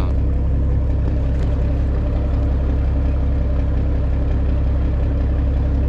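Steady low drone of an engine running on board a fishing boat.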